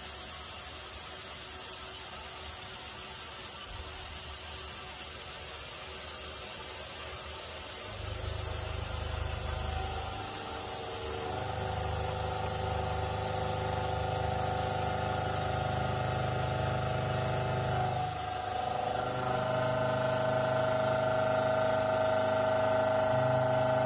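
2-inch indexable shoulder-milling cutter on a CNC mill spindle, taking a light constant-ramp profiling cut in 4140PH steel at 1530 rpm. A steady hiss runs throughout. About eight seconds in, a low cutting hum sets in, soon joined by a ringing whine. The sound grows gradually louder and dips briefly about three quarters of the way through.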